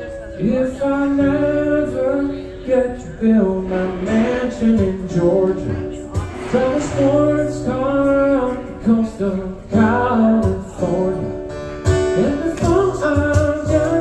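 A man singing and strumming an acoustic guitar: a live solo song, voice carrying a melody over guitar chords.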